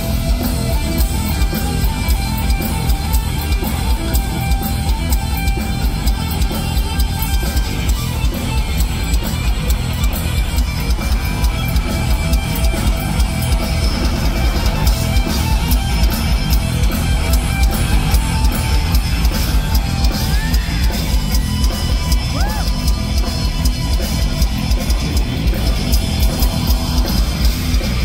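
Live rock band playing an instrumental jam: electric guitar through Marshall amps over drums, loud and continuous with a heavy, booming low end.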